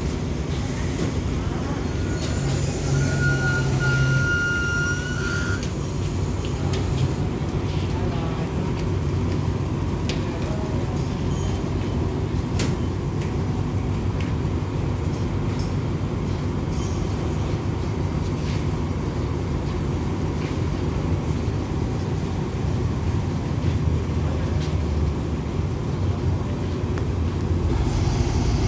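Steady low rumble of a passenger train standing at the platform, its two Alsthom diesel-electric locomotives idling. A high steady tone sounds for about three seconds a couple of seconds in.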